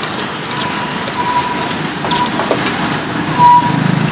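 A plastic spoon tosses salad in a stainless-steel bowl, giving light clicks and scrapes over a low street-traffic rumble. A thin high tone comes and goes and is loudest briefly about three and a half seconds in.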